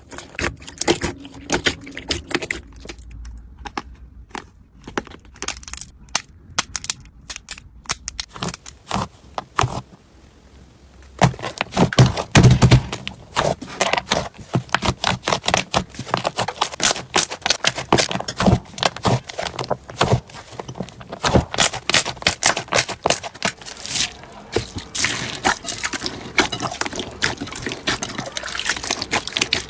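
Slime being squeezed and poked by hand, giving many small sharp crackles and pops. They are sparse and quieter for the first several seconds, then come thick and louder from about eleven seconds in.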